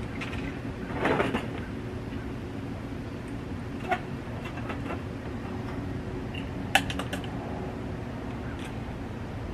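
A few light clicks and knocks from hands working on porch framing, with a short rustle about a second in and the sharpest click near the end, over a steady low hum.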